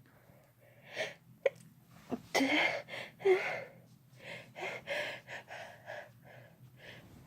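A person's sneezing fit: a gasping in-breath, then two sharp sneezes about a second apart, followed by a run of short sniffs and breaths.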